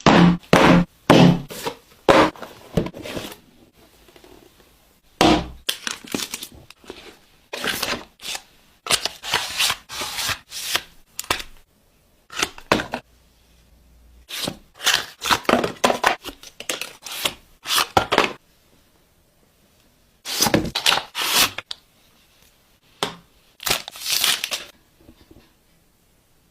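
Phone case packaging being torn open and handled, in irregular bursts of tearing and crinkling with short pauses between.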